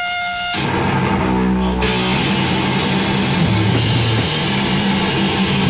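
Lo-fi heavy metal demo recording: distorted electric guitar riffing over drums at a steady loud level. A held high tone stops about half a second in, as the full band comes in.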